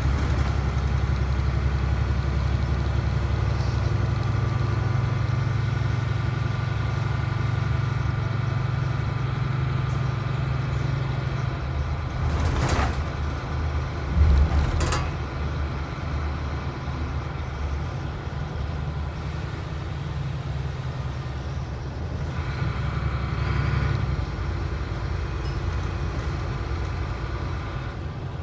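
Inside a DAF SB4000 bus with Jonckheere body on the move: a steady low engine drone and road rumble. About halfway there are a couple of sharp rattles and a heavy low thump from the bus. Near the end the low drone eases off.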